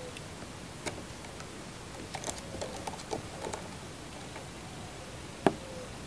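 Scattered light clicks and taps over a faint hiss, with one sharper click near the end, from a caged ring-necked dove shifting about on its perch in a bamboo cage.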